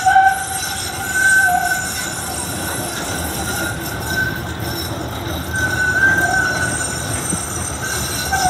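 Z-class tram's steel wheels squealing on the rails as it rounds a curve: a high, wavering squeal that swells and fades several times over a steady rumble of the tram running.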